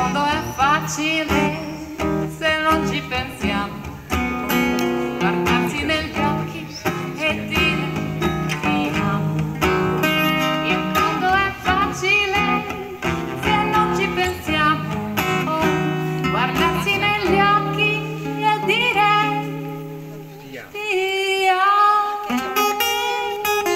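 A live acoustic blues song on two small plucked string instruments, with a woman's voice singing, most clearly near the end.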